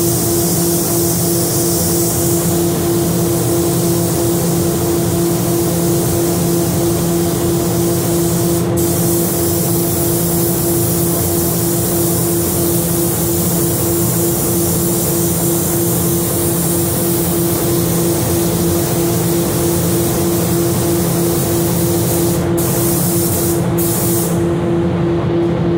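Gravity-feed paint spray gun hissing steadily as compressed air atomises red base-coat paint, over a steady low hum. The hiss drops out briefly about nine seconds in and a few times near the end as the trigger is let off.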